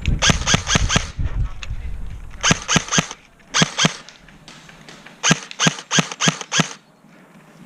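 Airsoft rifle firing four strings of quick, sharp shots, about six a second, with pauses between them.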